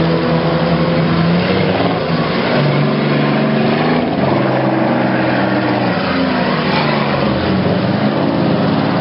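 Several demolition derby cars' engines running and revving together, loud and continuous, their pitch shifting up and down.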